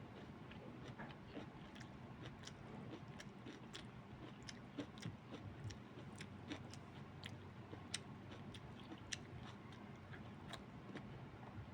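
A person chewing a mouthful of pork, cabbage and rice, with faint, irregular wet mouth clicks.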